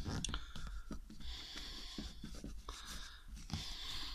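Scratchy rubbing with small irregular clicks as the sponge tip of a Paint Regen scratch-remover bottle is pressed and worked against the car's bodywork to soak the sponge with product.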